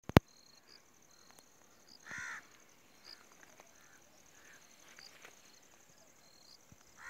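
Open-field ambience: a sharp click at the very start, then a crow caws once about two seconds in and again at the end, over a steady high insect trill and small bird chirps.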